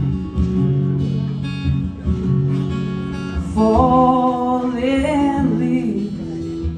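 Acoustic guitar strummed in a steady rhythm between sung lines of a song, with a male voice coming back in singing in the second half.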